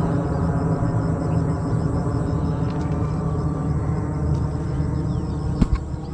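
A steady low mechanical drone from a motor running, with many even overtones, and a couple of sharp knocks near the end.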